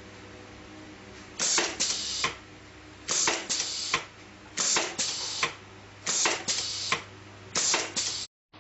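Pneumatic plastic-fastener tagging machine cycling on its fast setting: a pair of sharp air hisses about every one and a half seconds, five times, over a steady low hum. The sound cuts off abruptly near the end.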